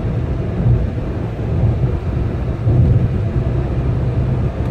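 Car driving: a loud, steady low rumble of engine and road noise.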